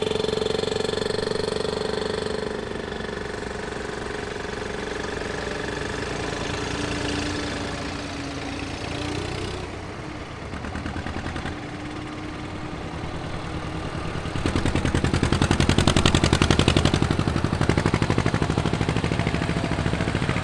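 Vintage diesel tractors driving past one after another. About two-thirds of the way through, an approaching tractor's engine grows loud, its rapid, even firing beat clearly heard.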